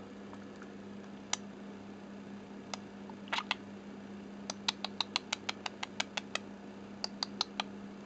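Sharp clicks and taps from a budgie's beak right at the microphone: a few scattered clicks, then a quick run of about a dozen at roughly six a second, and a few more near the end, over a faint steady hum.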